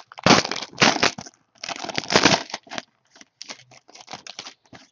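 Plastic wrapper of a trading-card box topper pack crinkling as it is opened by hand. Loud rustling comes in two clusters in the first two and a half seconds, then smaller rustles follow.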